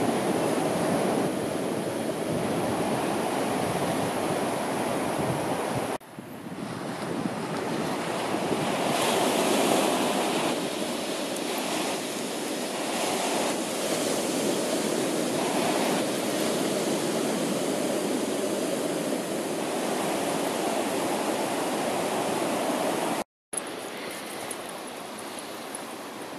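Surf washing onto a sandy beach with wind, a steady rushing noise that swells about ten seconds in. It cuts out briefly near the end and comes back quieter.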